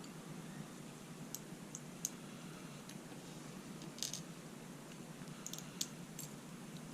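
Light, scattered metallic clicks and ticks of tweezers and small brass lock pins as the driver pins are taken out of a padlock's pin chambers, about eight in all, sharpest about two, four and six seconds in.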